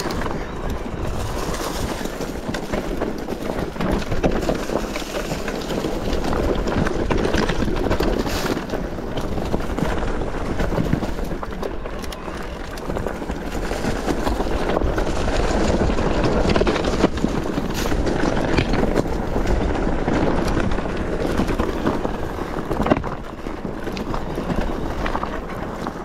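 Mountain bike descending a rocky trail: tyres crunching over stones and gravel while the bike rattles and clatters over the bumps, steady throughout with swells as the ground gets rougher.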